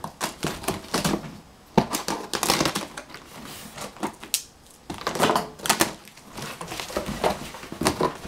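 Clear packing tape being torn off a cardboard shipping box in a series of irregular scratchy rips, and the cardboard flaps being pulled open.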